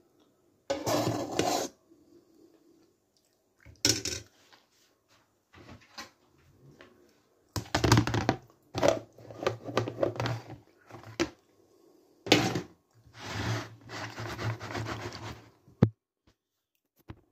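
Plastic food containers and a lid being handled: several irregular rubbing and scraping bursts, then one sharp click near the end.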